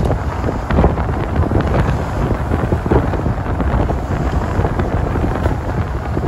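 Wind rushing and buffeting over the microphone at the side window of a moving sleeper bus, over the steady rumble of the bus's engine and tyres on the road.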